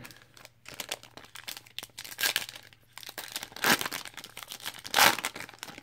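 Plastic wrapper of a Panini Prizm trading card pack crinkling and tearing as it is ripped open by hand, with louder rips about two, three and a half and five seconds in.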